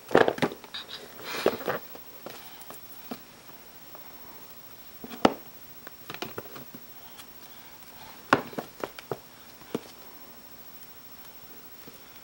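Board books knocking and clattering against each other and a plastic storage bin as they are handled and dropped in, in scattered clusters of sharp knocks with quiet stretches between.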